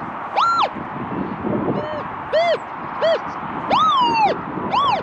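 Metal detector target tones as the search coil is swept over buried metal: about six short beeps, each rising and falling in pitch, some high and some low, over a steady rush of wind noise.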